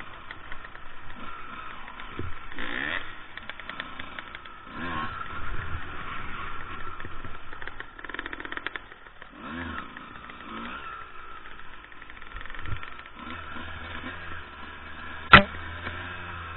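Two-stroke enduro dirt bike engines revving up and falling back again and again as they ride, with one sharp knock about fifteen seconds in, the loudest sound here.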